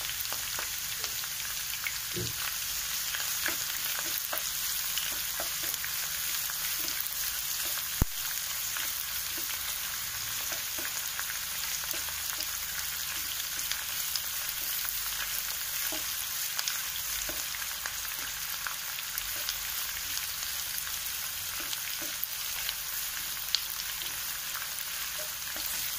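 Potato cubes and sliced onions sizzling in oil in a non-stick frying pan, a steady hiss. A wooden spatula stirring them scrapes and clicks against the pan now and then, with one sharper tap about eight seconds in.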